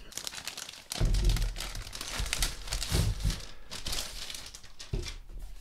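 A thin plastic protective sleeve crinkling as a laptop is slid out of it by hand, with a few soft low bumps from handling.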